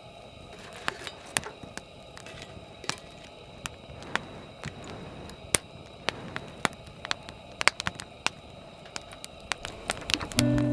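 Campfire crackling, with irregular sharp pops and snaps over a low hiss. Music comes in just before the end.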